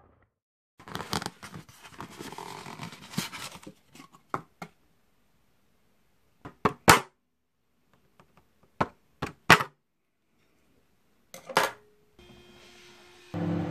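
Thin plastic packaging crinkling as it is handled and opened, then about six sharp clicks and snaps from a clear plastic food tray. Near the end a microwave oven starts running with a steady hum.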